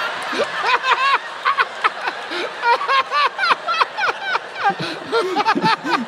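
Men laughing together in rapid, overlapping bursts of chuckles and giggles.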